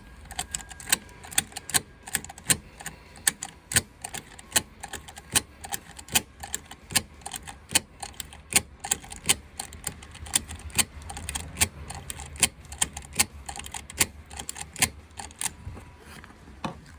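Seat belt tongue of a 2013 Jeep Wrangler being latched into and released from its buckle over and over, giving sharp metallic clicks about two a second. The buckle is being worked to spread contact cleaner through its switch, because a dirty switch keeps the seat belt warning light on.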